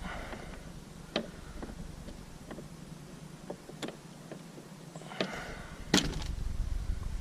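Scattered clicks and light knocks from hand work on car parts, as a stuck part is worked at, with a louder knock about six seconds in.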